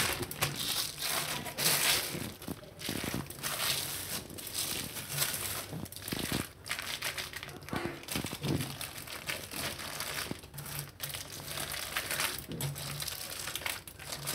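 Thin plastic bag sheet crinkling and rustling in quick, irregular bursts as hands roll a cashew-dough log back and forth inside it.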